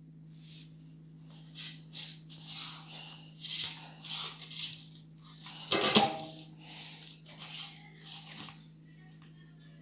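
A hand pressing, patting and rubbing spinach whole-wheat dough flat in a stainless steel bowl: a run of soft slaps and scrapes, with a louder knock against the bowl about six seconds in that makes the metal ring briefly.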